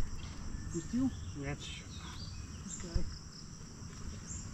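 Steady high, thin insect drone, with a few short low voice sounds and a single knock about three seconds in.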